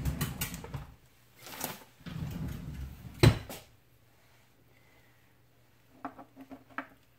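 Metal spoon scraping and knocking against a ceramic bowl while stirring a thick, starch-heavy shrimp paste, with one sharp clack about three seconds in; quieter stirring after that.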